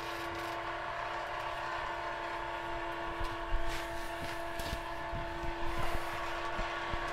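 Homemade antigravity generator running: a steady mechanical hum of several tones, with a few scattered clicks from about three seconds in.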